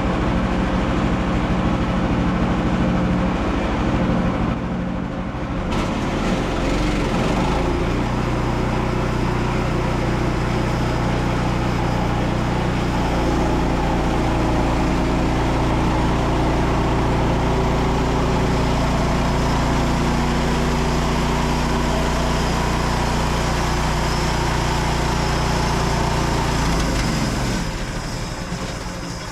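Frontier OS27 manual sawmill's small petrol engine running steadily, then slowing and dying away near the end as it runs out of petrol.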